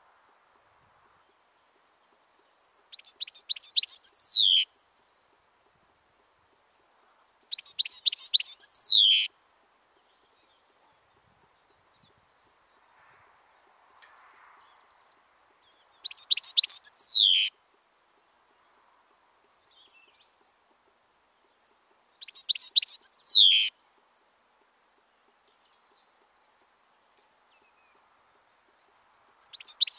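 European goldfinch singing in five short phrases a few seconds apart, the last starting just before the end. Each phrase is a quick run of repeated twittering notes ending in a falling slur.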